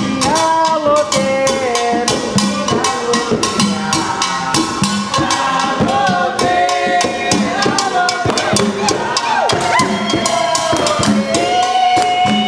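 Atabaque hand drums playing a quick, steady rhythm under a group of voices singing a chant.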